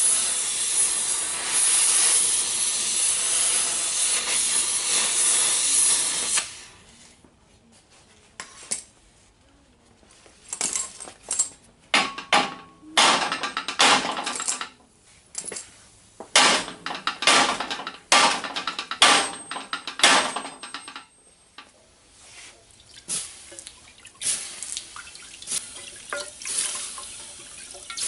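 Cutting torch hissing steadily as it heats a bent steel plate, shut off about six and a half seconds in. Then comes a string of short, irregular hissing and splashing bursts.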